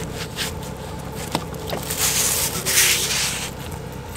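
Dry leaf and twig debris rustling and scraping as a hand digs around the wiper linkage in the cowl, loudest about two to three and a half seconds in, over a steady low hum.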